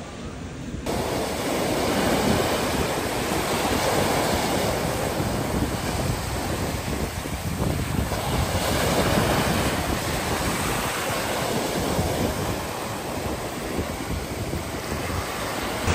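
Ocean surf breaking and foaming up the sand at the water's edge: a steady rushing wash that swells and eases as waves come in.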